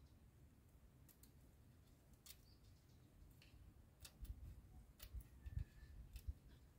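A few faint snips and clicks, with soft low knocks in the second half: the excess rubber spline of a mosquito screen being cut off and the screen frame handled.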